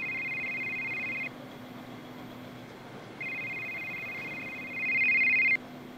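A phone ringing with an electronic two-tone trilling ring, heard twice. One ring ends about a second in, and the next starts about three seconds in and grows louder just before it stops.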